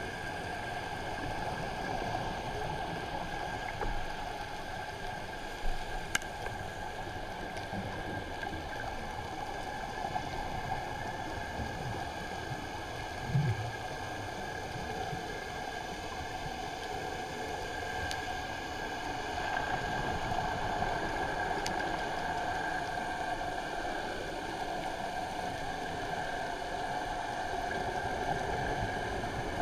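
Underwater ambience heard through a camera's waterproof housing: a steady muffled hiss with a constant low hum, a few faint clicks, and one soft thump about thirteen seconds in.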